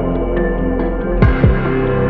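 Ambient background music: sustained pads with soft struck notes, one about a second in, each with a low falling tone beneath.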